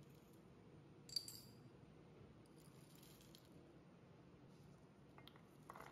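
Whole spices, cumin seeds and black peppercorns, dropped into a dry stainless steel pot: a sharp metallic clink that rings briefly about a second in, then about a second of seeds rattling on the steel, and a few light clicks near the end.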